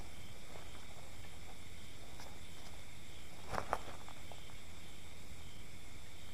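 Steady night-time outdoor background of insects chirring over a low rumble, with two sharp clicks close together about three and a half seconds in.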